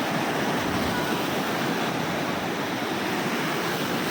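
Ocean surf washing onto a sandy beach, a steady rush of breaking waves.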